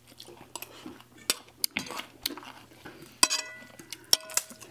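Metal spoons clicking and scraping on ceramic plates, a run of short sharp taps. Two louder clinks ring on briefly, about three seconds and four seconds in.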